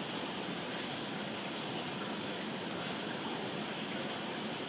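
Steady rain heard from inside a building: an even, constant hiss with faint scattered ticks of drops.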